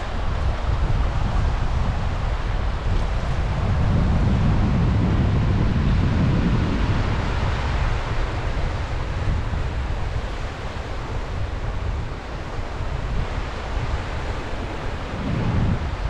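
Wind buffeting the microphone in gusts over the steady wash of sea waves on the shore, with the heaviest gusts a few seconds in and again near the end.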